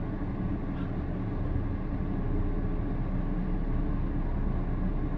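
Steady low rumble inside a car cabin from the car's engine running.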